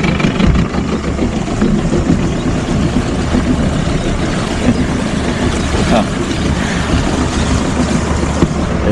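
Boat's outboard motor running steadily, with a rushing noise of wind and water over it.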